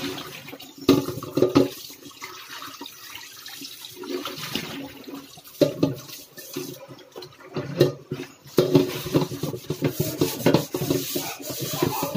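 Pots being washed by hand in a stainless-steel kitchen sink: water splashing from the tap while a pot is scrubbed, with frequent sharp knocks of metal cookware against the sink and each other.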